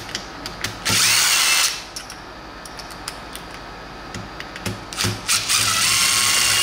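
Handheld power drill spinning loosened torque-to-yield cylinder-head bolts out, in two runs: one about a second in, and another from about five seconds in. Each run starts with a rising whine as the motor speeds up. Light clicks of the socket and bolts come between the runs.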